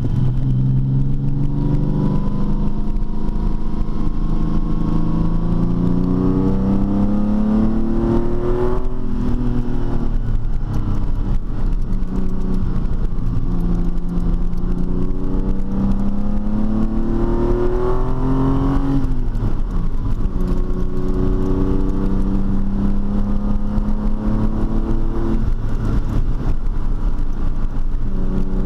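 TVR T350's Speed Six straight-six engine pulling under acceleration, its pitch climbing steadily and then dropping sharply at each upshift, about 9 s in and again near 19 s. It then runs at a steadier pitch, with another dip near the end.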